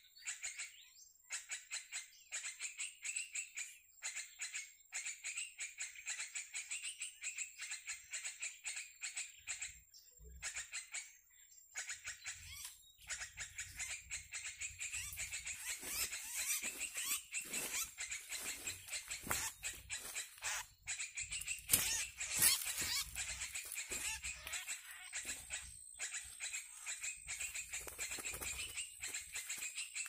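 Sooty-headed bulbul (kutilang) chatter played as a bird-netting lure: dense, rapid, high-pitched calls that run on without a break. A low rumble joins about ten seconds in.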